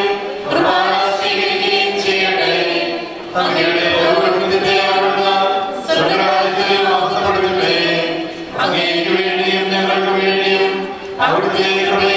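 A choir singing a liturgical chant in long held phrases, each breaking off briefly about every two and a half to three seconds.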